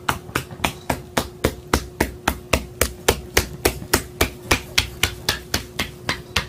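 Caique parrot tapping its feet across a wooden floor, a regular patter of sharp taps about four a second, over a faint steady hum.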